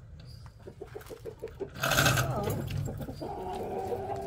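Backyard hens clucking: a quick run of short low clucks, a sudden louder noisy burst about two seconds in, then a longer drawn-out call near the end.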